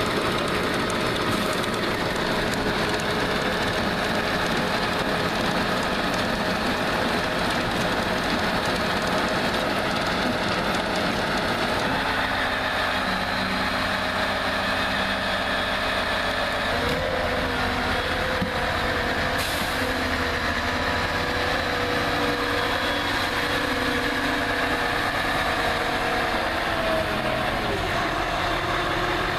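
Ropa Tiger 4 self-propelled sugar beet harvester at work: its diesel engine runs steadily while the unloading conveyor tips beets onto the heap with a dense, even noise. After about twelve seconds the noise drops back, and the engine's steady tones come through more plainly, shifting in pitch near the end as the machine moves off.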